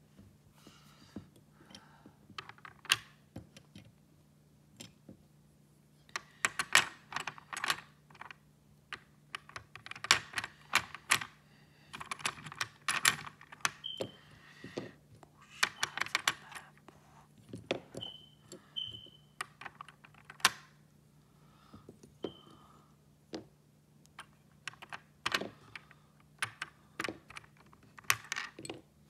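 Plastic pieces of a SmartGames peg-board puzzle clicking and clattering as they are picked up, tried and pressed onto the plastic board, in irregular clusters of small knocks with short pauses between. A few brief high squeaks come in the middle, over a low steady hum.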